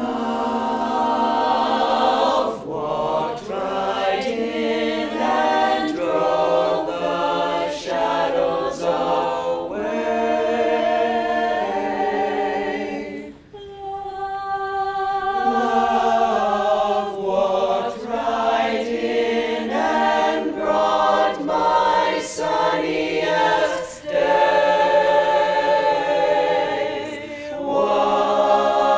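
Mixed choir of teenage boys and girls singing a cappella in close harmony, several voice parts at once with no instruments, pausing briefly about halfway through.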